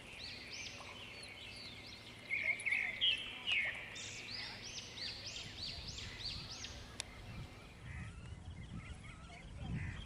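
Several birds calling outdoors: quick series of repeated high, rising-and-falling notes, louder for a moment about two to four seconds in.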